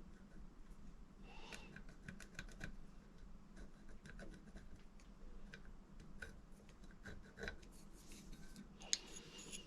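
Faint scattered clicks, taps and light scratching of small parts and a marker being handled while marking out a hole position on a box, with one sharper click near the end, over a steady low workshop hum.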